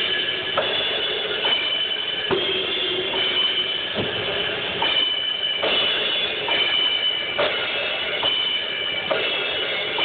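Single drum hits played one at a time for a sound check, about one a second and unevenly spaced, amplified through a JBL Vertec line-array PA, over a steady background tone.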